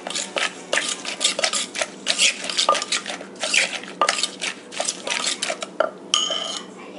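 Wooden pestle pounding and a spoon scraping and turning papaya salad in a clay mortar: an irregular run of knocks and clatters, about three a second. About six seconds in, a brief metallic ring, then the pounding stops.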